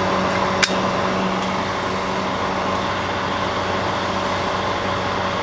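Vintage Rex-Ray model 38100 hair dryer running: a steady hum from its small electric motor under an even rush of air from the fan. A single short click a little over half a second in.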